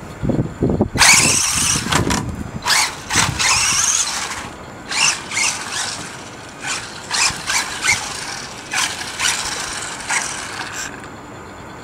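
Electric motor of a 1/18-scale 4WD RC buggy whining in about a dozen short bursts of throttle, the pitch rising within each burst. There is a low rumble during the first two seconds.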